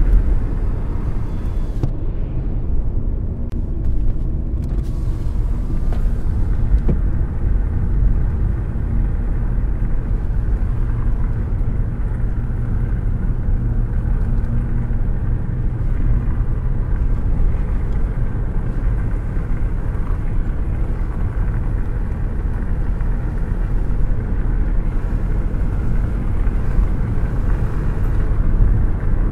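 A car driving along with a steady low rumble of engine and road noise and no clear change in pitch.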